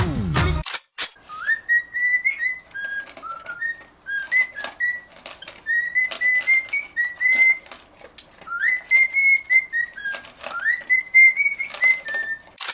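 Whistling in short phrases: notes swoop up and then hold, with a few sharp clicks in between.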